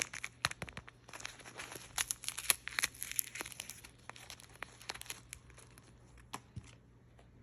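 Doll packaging being handled and opened: a dense run of crinkling and tearing for the first three seconds or so, thinning to scattered crackles and a sharp click near the end.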